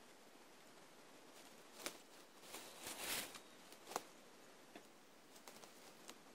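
Faint rustling of leaves and twigs: scattered light rustles and a few sharp snaps over a quiet steady hiss, the longest rustle about three seconds in.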